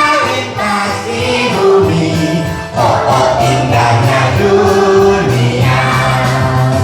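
Music: a song sung over instrumental backing, with held sung notes.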